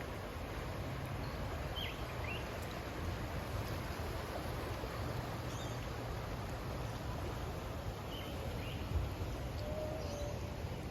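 Outdoor ambience: a steady low rumbling hiss with a few short, high bird chirps scattered through.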